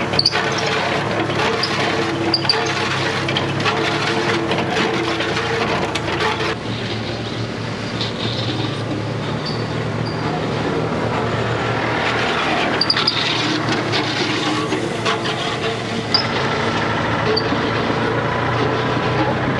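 The engine of a small vehicle running steadily while it tows an old compactor roller on a new welded hitch, its note shifting a couple of times, with a few sharp knocks.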